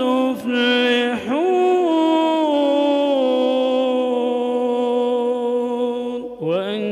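A man's solo voice reciting the Quran in melodic tajweed chant, holding one long drawn-out vowel for several seconds while its pitch slowly sinks. Near the end it breaks briefly for breath and a new phrase starts, rising in pitch.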